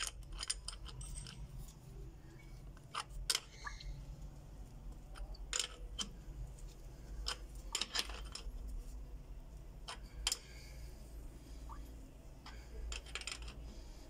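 Irregular sharp metallic clicks and ticks of an adjustable wrench gripping and turning a threaded metal fitting into the brass-threaded insert of a PPR pipe elbow, over a low steady rumble.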